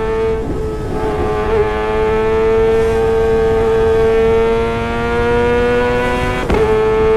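Kawasaki ZX-25R's 250 cc inline-four revving high through a Sportisi Motorsport SRX aftermarket exhaust, a loud, high-pitched wail that climbs slowly in pitch, then breaks briefly and steps down near the end.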